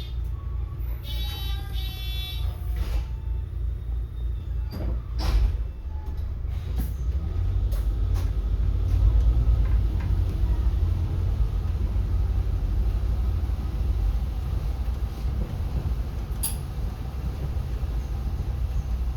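Inside a city bus: a few electronic beeps, a short hiss of air about five seconds in, then the bus's low engine and road rumble building as it moves off and continuing steadily.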